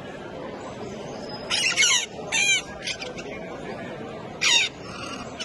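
A bird at a bird show giving four loud, harsh squawking calls, the first about a second and a half in and the last near the end. The calls sit over steady background noise.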